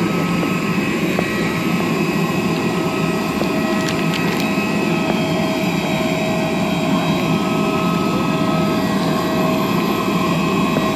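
A parked Airbus A320 jet airliner's turbine running steadily: a constant rumble with several high, steady whining tones layered on top.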